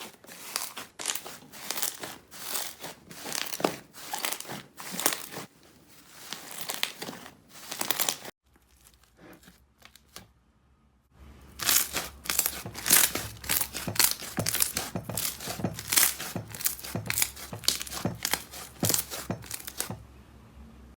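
Slime being pressed and pulled by hand, giving quick runs of crackling and popping, typical of crunchy slime. About eight seconds in, the sound stops for roughly three seconds, then resumes faster and louder.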